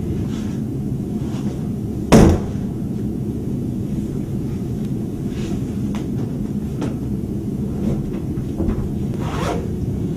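A single loud knock or bang about two seconds in, over a steady low rumble, with a few softer clicks and rustles.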